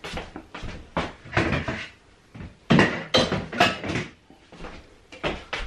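Kitchen clatter: a series of knocks and bumps as tins and jars are handled and put away, with a cupboard door being opened and shut. The loudest knocks come about three seconds in, with a few more near the end.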